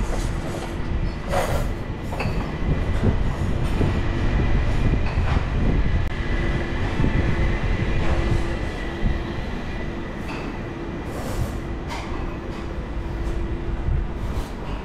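Wind rumbling and buffeting on the microphone of a handheld camera. A steady mechanical hum sits under it from about five seconds in until near the end, with a few light knocks.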